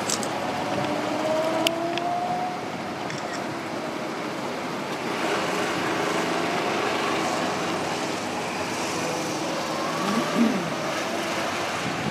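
Go-kart engines running as karts lap the track, with engine notes rising in pitch as they accelerate. One kart comes briefly louder with a quick rise and fall in pitch about ten seconds in.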